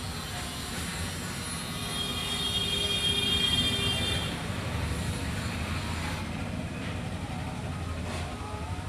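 Motor vehicle running with a steady low rumble, joined by a high-pitched tone of several evenly spaced pitches for about two seconds near the middle.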